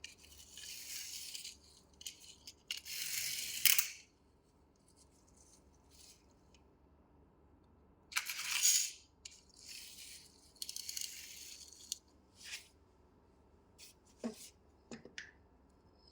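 Rustling and rattling of small objects being handled, in irregular bursts of about a second, with a few sharp clicks near the end.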